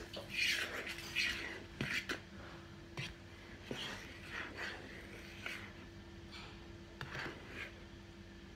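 A fork stirring thick batter in a plastic mixing bowl: irregular scrapes and squishes with a few light clicks of the fork against the bowl, over a faint steady hum.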